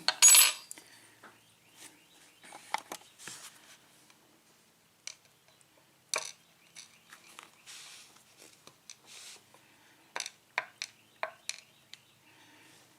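Scattered light metallic clicks and taps from handling a disassembled pin-tumbler lock cylinder and its small parts, with a louder clatter right at the start and a quick run of clicks near the end.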